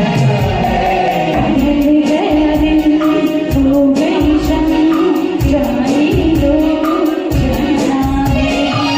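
A Hindi film song performed live: a voice sings a wavering melody over a backing track with a steady beat and a cymbal ticking about four times a second.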